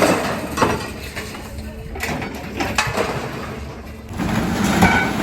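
Hard items clinking and knocking together as they are handled, with four sharp knocks in the first three seconds.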